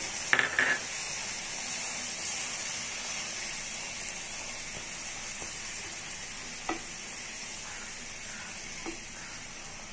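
Tomato and onion gravy sizzling in a nonstick frying pan after a little water has been added, with a spatula stirring through it. The sizzle slowly fades. There is a short louder sound just after the start, and two light knocks of the spatula on the pan in the second half.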